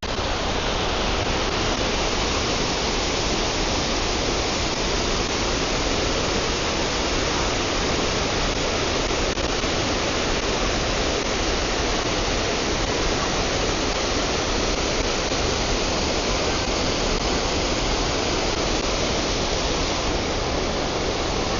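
Kuang Si waterfall's cascades rushing, a loud, steady, even noise of falling water that holds the same level throughout.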